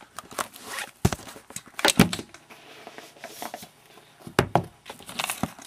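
Camera handling noise: a few knocks and thumps as the camera is set down on a pool table, the loudest about two seconds in, followed by scattered bumps and rustling.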